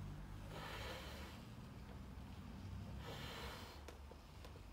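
A person inflating a large latex balloon by mouth: two sharp breaths drawn in through the nose, each followed by a long, quieter blow into the balloon.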